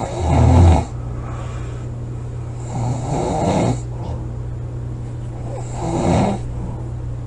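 A woman snoring loudly: three snores about three seconds apart, the first the loudest, over a steady low hum.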